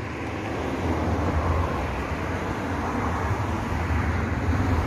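A motor vehicle running nearby: a steady low engine drone with road noise, swelling slightly about a second in.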